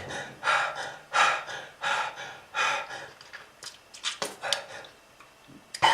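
A person's labored, gasping breathing: a string of short rasping breaths, about one every half second to second, growing weaker after the first few, typical of lung disease from smoking.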